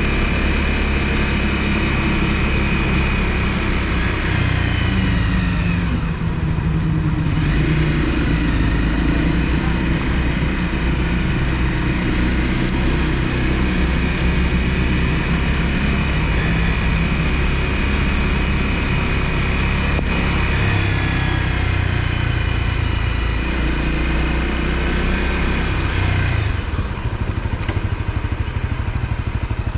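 Honda CRF250L's single-cylinder four-stroke engine running steadily as the motorcycle rides along. The engine note drops and climbs again about six seconds in, and changes again near the end.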